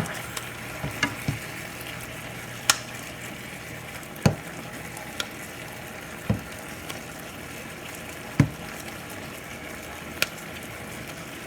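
Chicken frying in a pan with a steady sizzle, broken by sharp knocks every second or two as a hand-held chopper tool is jabbed down into the pan to chop the chicken up.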